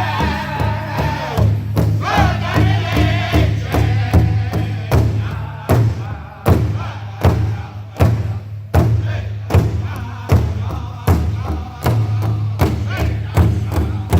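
Powwow drum group: singers in high unison voices over a big drum struck by several drummers together. The singing is strongest in the first couple of seconds, then the steady drum strokes, about one and a third a second, carry on with fainter voices.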